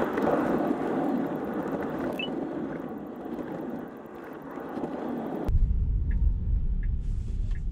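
Tyre and road noise heard inside a Tesla driving on a wet street, a steady hiss with no engine note. About five and a half seconds in it cuts abruptly to a deeper low rumble.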